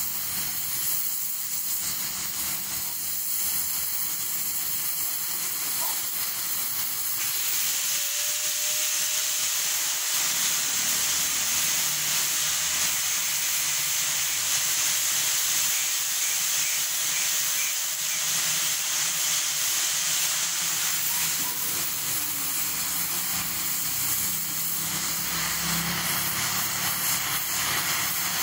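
Oxy-fuel cutting torch burning through thick steel plate, a steady jet hiss of gas and molten metal that turns louder and brighter about seven seconds in.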